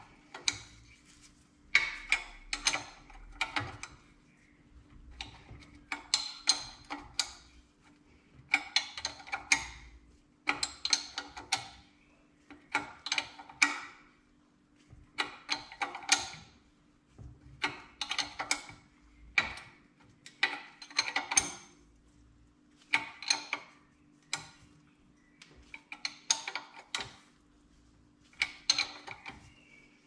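Open-ended spanner clinking against the turbo oil feed pipe's union nut as the nut is turned a little at a time, with a cluster of sharp metal clicks about every two seconds.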